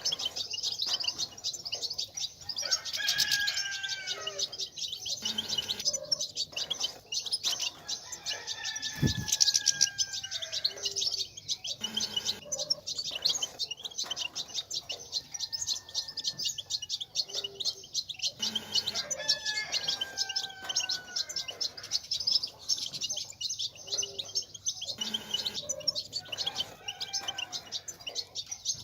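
European goldfinches twittering: a dense, rapid, continuous chatter of high notes, the 'batbata' that keepers play to stir males into song. Every few seconds a lower whistled note slides downward, and there is one short thump about a third of the way through.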